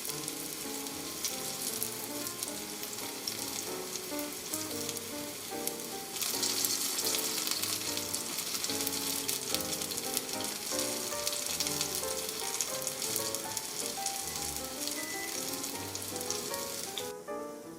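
Starch-coated zucchini pieces shallow-frying in oil in a pan, with a dense crackling sizzle. The sizzle grows louder about six seconds in and cuts off shortly before the end.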